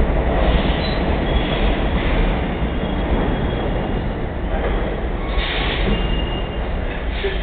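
R33 Redbird subway garbage train rolling through an underground station: a steady, loud rumble of steel wheels on rail. Brief higher wheel squeals come in about five and a half seconds in and again near the end, while the rumble slowly fades.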